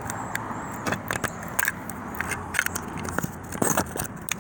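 Irregular light metallic clicks and clinks of hand tools and loose steering-column parts being handled and shifted on the bench.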